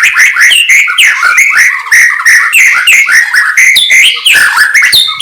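White-rumped shama (murai batu) singing loudly: a rapid, unbroken stream of short sweeping whistles and trills.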